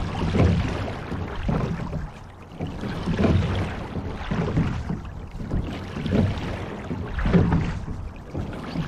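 Water rushing and splashing along the hull of a sculling shell being rowed, swelling and fading in a steady rhythm with the strokes.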